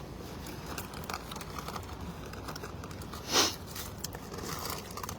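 Rustling and small clicks of equipment being handled while microphones are fetched, with one short rushing whoosh about three and a half seconds in.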